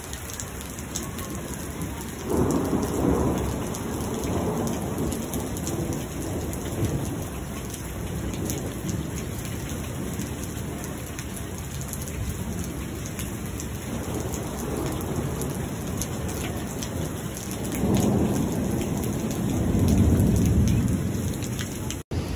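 Heavy thunderstorm rain pouring down, a steady hiss with the patter of drops striking hard surfaces. Thunder rolls twice, once about two seconds in and again, louder, near the end.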